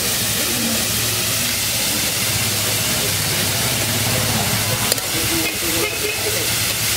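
Steady hiss and sizzle from a large flat iron griddle (tawa) cooking over its burner, with a low steady hum beneath and a single sharp tick about five seconds in.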